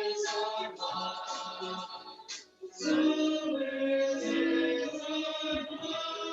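Music with singing: a sung melody over instrumental accompaniment, dipping briefly in the middle before the singing resumes.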